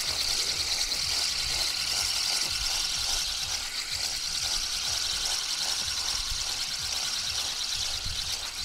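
Spinning fishing reel being wound, its gears ticking rapidly and evenly as line is retrieved.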